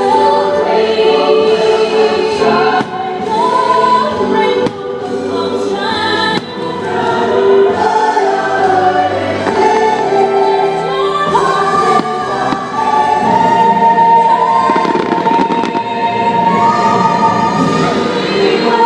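Fireworks show music with a choir singing held notes, played loud, with fireworks bursts popping and crackling through it.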